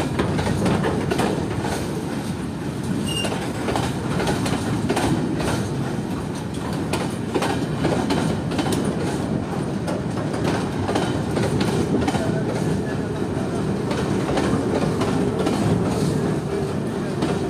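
Container flat wagons of a freight train rolling past: a steady rumble of steel wheels on the rails, with frequent clicks as the wheels cross the rail joints.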